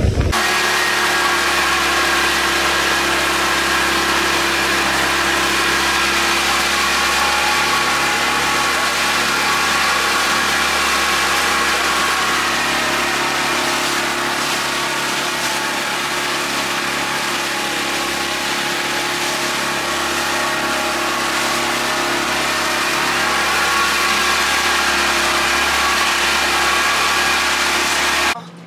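Pontoon boat's motor running at a steady cruising speed, its drone holding one unchanging pitch, with a hiss of wind and water over it. It stops abruptly near the end.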